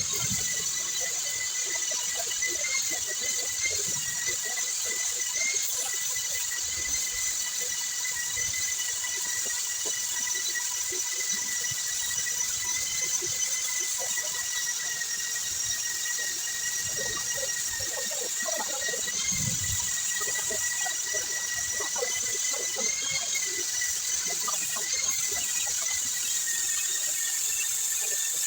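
A steady, high-pitched machine whine with a hiss above it, under scattered faint clicks and knocks.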